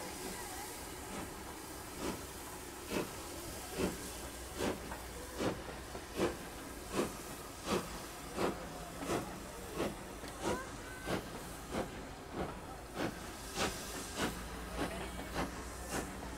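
Two-cylinder LNER B1 steam locomotive 61306 Mayflower pulling away over a steady hiss of steam. Its exhaust beats start just under a second apart and quicken to about two a second.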